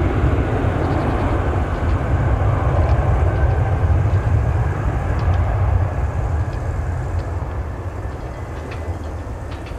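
Fokker 100 airliner's two Rolls-Royce Tay turbofans in a deep, rumbling roar as the jet climbs away after take-off, slowly fading over the last few seconds.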